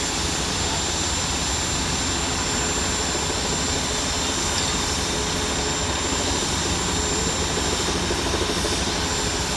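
Fire engine's pump running steadily to supply a charged hose line: a constant loud roar with a faint high whine over it.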